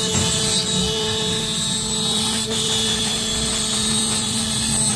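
CNC router spindle running with a steady whine as its bit carves a relief into an MDF panel.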